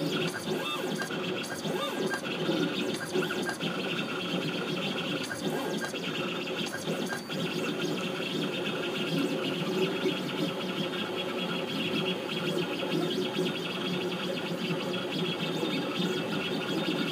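CNC engraving machine cutting a design into a coated steel shotgun receiver: a steady whine from its motors with the engraving bit scratching continuously on the metal.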